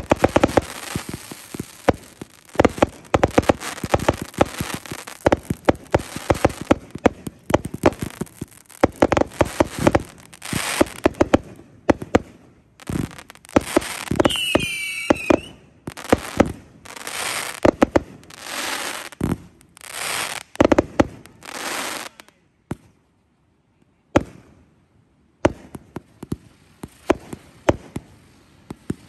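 Fireworks going off in a rapid barrage. Dense bangs and pops with crackle for the first dozen seconds, then separate bursts with crackling tails and a brief high whistle about halfway. After a short quiet gap, scattered bangs return near the end.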